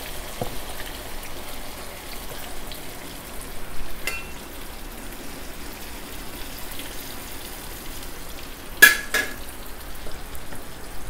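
Sliced beef coated in turmeric and salt deep-frying in hot oil in a wok, a steady sizzle, being fried until fairly crisp. A metal spatula clinks against the wok once about four seconds in and twice, more loudly, near the end.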